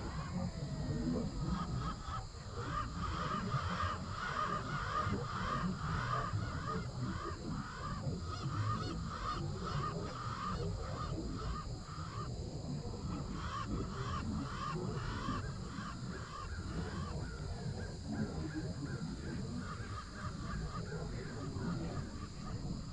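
Eerie sound-design bed: a low rumble under a rapid stream of short, harsh, call-like squawks, a few a second, thinning out near the end.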